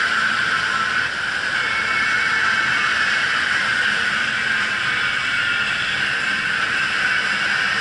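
Steady rushing noise of a longline fishing boat underway at sea: engine running and water churning in the wake, without a break.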